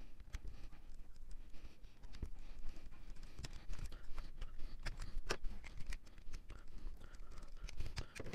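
Hands and a screwdriver working on an RC car chassis: scattered light clicks and scratching as the plastic gear cover is unscrewed and pulled off, with a few sharper clicks in the second half.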